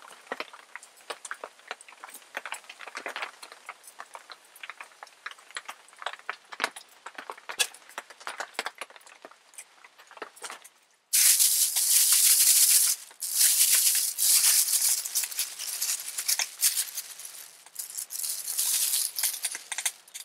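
Small wood-burning camp stove crackling, with scattered clicks as the boiling pot is set aside. Just past halfway it changes abruptly to loud crinkling of a plastic bag being handled, in several bouts.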